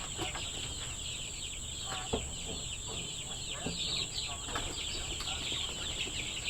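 A brooder full of three-week-old Freedom Ranger chicks peeping nonstop, a dense chorus of short, high chirps with a few louder calls among them.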